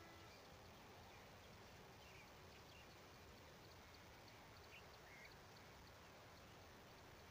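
Near silence: faint outdoor field ambience, with a few faint, short high chirps and ticks.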